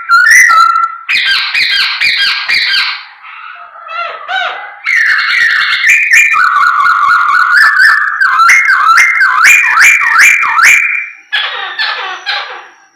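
A Chinese hwamei (poksay hongkong) singing loudly in fast, varied whistled phrases, with repeated slurred notes and trills rising and falling in pitch. The song eases off briefly in the first third, then carries on.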